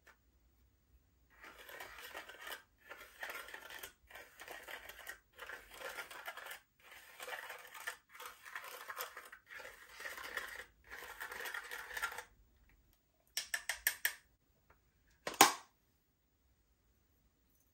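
Slime being worked by hand: a string of crackly, squishy strokes about a second each with short gaps, then a quick run of small pops and one sharp, loud pop near the end.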